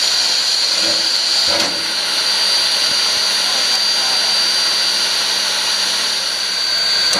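Steam hissing steadily from NZR steam tank locomotive Ww 644 standing still, a loud even hiss with a thin high whine running through it.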